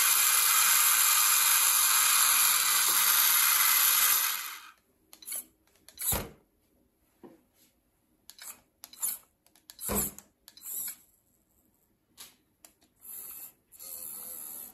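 Small electric motor of a handmade RC mini tractor running steadily, then stopping abruptly about four and a half seconds in. Scattered clicks and rubbing follow, with two sharp knocks about six and ten seconds in.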